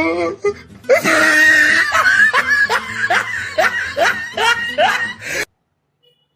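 A woman laughing: a long high-pitched cry, then a run of short rising laughs, two or three a second, cut off abruptly.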